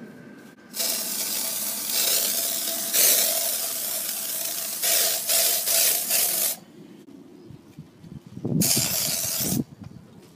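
Aerosol air freshener spraying: one long hissing spray of about four seconds with a faint whistle in it, a few short puffs after it, then, after a pause, one more spray of about a second near the end.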